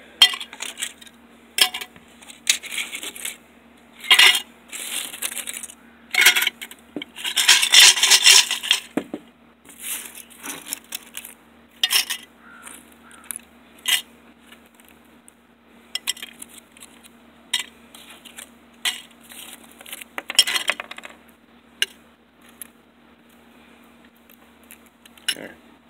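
Small pieces of computer scrap (circuit-board fragments, gold-plated fingers and pins) clinking and rattling as they are dropped and shuffled into a beaker, in irregular bursts of sharp clicks, the busiest stretch about eight seconds in.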